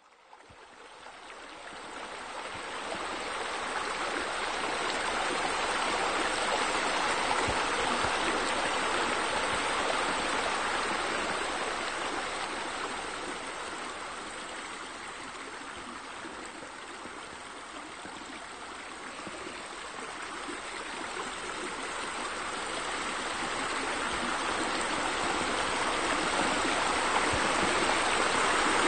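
Steady rush of running water from a pool's waterfall feature, fading in over the first few seconds, easing off around the middle and growing louder again near the end.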